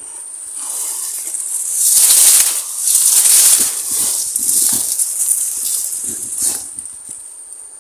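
Grass and reed stems rustling and brushing close up as someone pushes through them, in several swells that are loudest a couple of seconds in and die away near the end. A steady high insect trill runs underneath.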